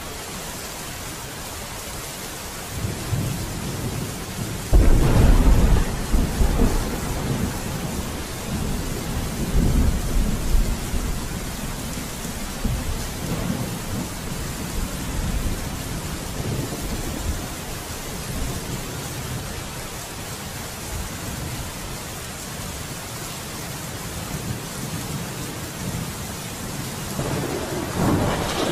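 Steady rain with rolling thunder: a loud, deep roll of thunder begins about five seconds in and fades away over several seconds, and another rumble swells near the end.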